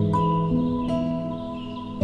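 Calm instrumental background music: new notes enter over held low chords.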